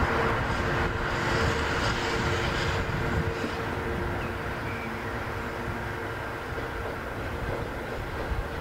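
Italian FS electric locomotive running on its own as it moves away over the station tracks: wheel and rail noise with a steady humming tone, gradually fading as it recedes.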